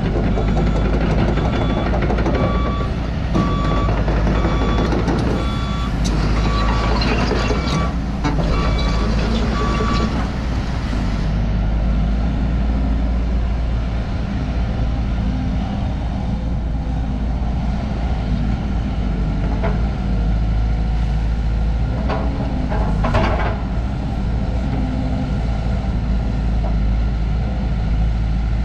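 Volvo EC210DL crawler excavator's diesel engine running under hydraulic load as the machine swings and works its boom and bucket. A warning alarm beeps at a steady rhythm for about the first ten seconds, then stops; a few knocks come a little past twenty seconds in.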